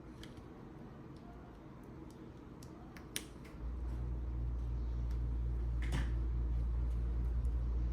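Light clicks and taps of small tools handling a phone during a repair, with a sharper click about three seconds in and another near six seconds. Just before halfway a steady low rumble starts abruptly and continues, louder than the clicks.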